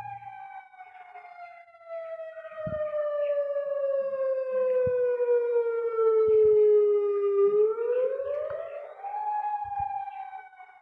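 Federal Signal Modulator 4016 electronic warning siren sounding its wail: the tone slides slowly down, swings back up quickly about eight seconds in, and starts falling again near the end.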